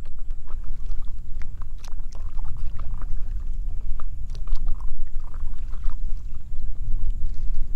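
Water splashing and trickling in small scattered bursts around a kayak on the water, over a steady low rumble.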